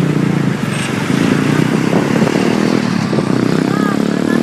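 Loud engine and road noise of passing traffic, a motor vehicle running close by, with a few faint high squeaks about four seconds in.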